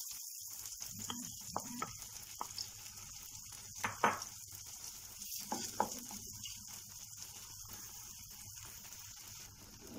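Beaten eggs sizzling as they set in a hot frying pan over sautéed mushrooms and peppers. A wooden spatula knocks and scrapes at the pan now and then.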